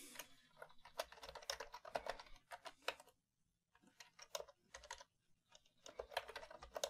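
Faint typing on a computer keyboard: quick runs of keystrokes broken by short pauses, the longest about a second long, about halfway through.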